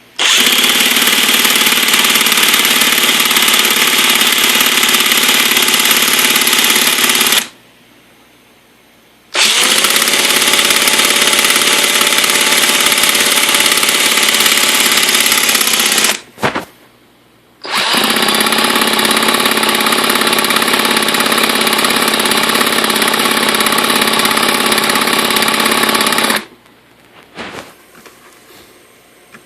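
Electric starter spinning a Redcat VX 16 nitro RC engine in three long, steady whining runs of several seconds each, with short pauses between them. The engine never fires or catches: it cranks but will not start.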